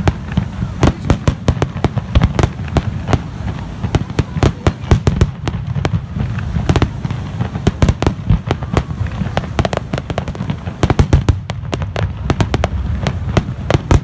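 Aerial fireworks display: shells bursting overhead in a dense, irregular run of bangs and cracks, several a second, over a steady low rumble.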